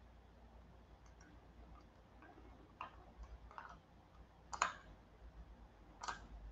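A few faint, separate clicks, about five of them spread over the last four seconds, from a computer being worked by hand while screen sharing is set up.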